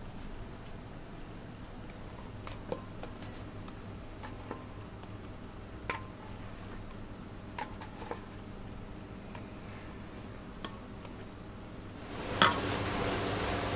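Scattered light clinks and knocks of stainless steel bowls and utensils as a whipped mixture is tipped from a mixer bowl into another steel bowl and scraped out with a spatula, over a low steady hum. Near the end, after a knock, a loud steady rushing noise starts.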